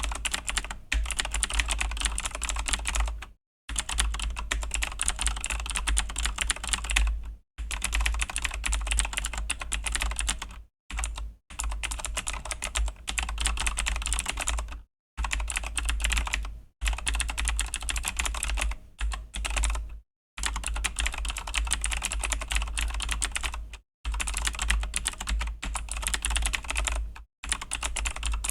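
Continuous fast typing on a Razer BlackWidow V3 mechanical keyboard with Razer Green clicky switches: dense crisp key clicks in runs of a few seconds, with brief pauses between runs.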